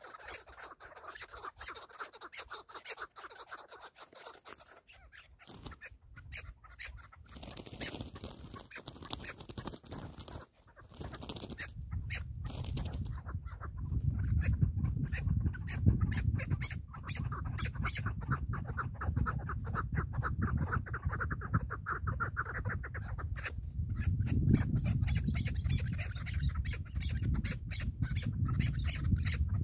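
Chukar partridges calling, a fast run of repeated clucking notes. A low rumbling noise comes in partway through and grows louder.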